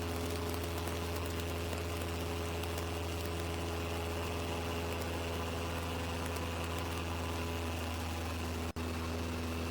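Steady drone of a Cessna's single piston engine and propeller holding power on the downwind leg of the traffic pattern: an even hum with steady low tones. The sound drops out for an instant near the end.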